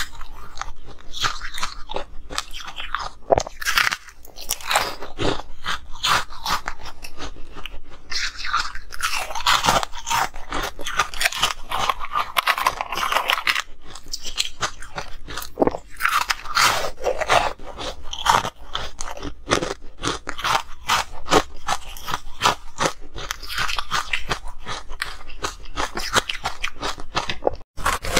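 Ice being bitten and chewed close to the microphone: dense, irregular crunching and cracking, breaking off briefly near the end.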